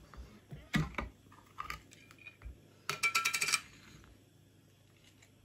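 A twist-off lid being unscrewed from a glass jar: a couple of sharp clicks about a second in, a few light knocks, then a short rattling clatter with a faint ring around three seconds in as the lid and glassware are set down.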